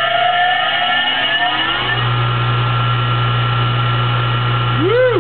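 Siemens three-phase induction motor (6.1 HP, 460 V) running on single-phase power through capacitors as a rotoverter. Its whine rises in pitch for about the first two seconds as it comes up to speed, then holds steady over a loud electrical hum. Just before the end there is a brief chirp that rises and falls.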